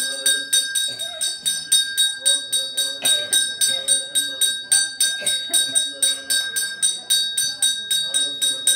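Temple bell rung rapidly and evenly during the puja at the shrine, about four strokes a second, its ring holding on continuously, with voices murmuring underneath.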